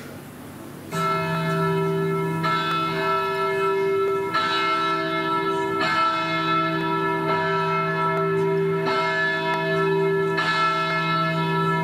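Church bells tolling in a recorded music track, starting about a second in, with a fresh strike roughly every one and a half to two seconds and each stroke left ringing.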